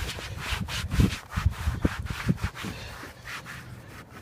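A cloth wiping back and forth over engine-bay surfaces in quick, repeated rubbing strokes, working in a protectant. The strokes grow weaker near the end.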